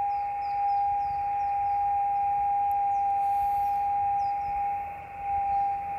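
Steady single-pitch beat note of an unmodulated microwave carrier, received through a 10 GHz transverter and FT-817 transceiver and heard from the radio's speaker over receiver hiss. The tone dips slightly near the end. Birds chirp faintly in the background.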